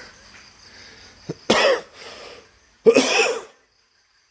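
A person coughing twice, about a second and a half apart, the second cough a little longer. Crickets chirr faintly and steadily behind.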